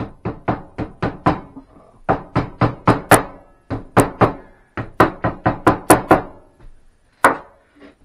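Hammer tapping the lid down onto a paint can to seal it. Quick, sharp knocks about four a second, in bursts of three to seven with short pauses between, and one last single knock near the end.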